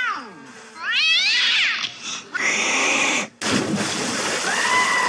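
Cartoon cat meowing: a falling meow at the start and another rising-and-falling meow about a second in. From about two and a half seconds on there is a stretch of harsh noise, with a held high cry near the end.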